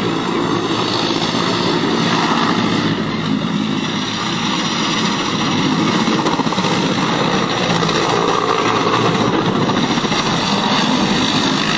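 A loud, steady engine drone with fine rapid pulsing, holding level throughout.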